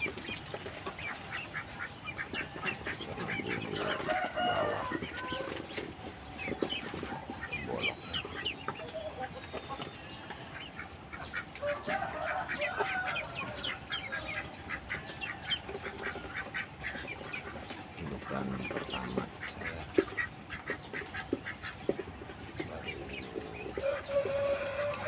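Ducklings peeping in quick, repeated short chirps throughout, with louder, longer fowl calls breaking in several times.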